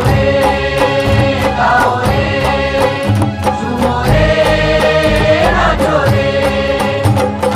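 Hindi devotional festival song: a melody of long held notes over a steady, evenly repeating percussion beat.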